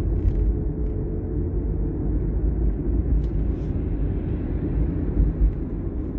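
Car on the move, heard from inside the cabin: a steady low rumble of road and engine noise.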